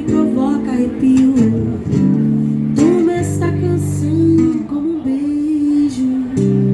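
Acoustic guitar strumming chords, with a woman's voice singing a long, wavering melody line over it.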